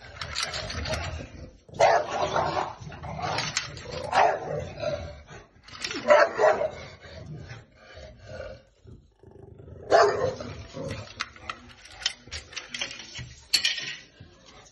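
English bulldogs barking in a series of loud bursts, reacting to coat hangers. Near the end come sharp clicks of plastic hangers with metal hooks knocking together.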